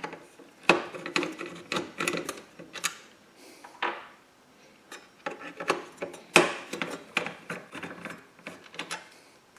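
Phillips screwdriver backing out screws from a PC's metal hard drive housing: irregular clicks and scraping rasps of the driver bit and screw threads in the metal, in two main bouts with a short one between.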